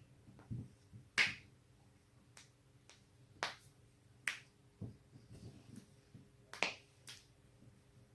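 A person's joints cracking: a series of sharp, separate pops. The loudest comes about a second in, three more clear ones follow, and several fainter clicks and a few soft low thumps fall in between.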